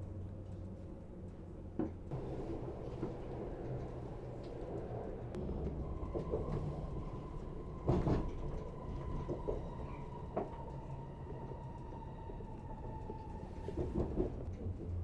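Passenger train running, heard from inside the coach: a steady low rumble with occasional sharp knocks, and a steady whine for several seconds in the middle.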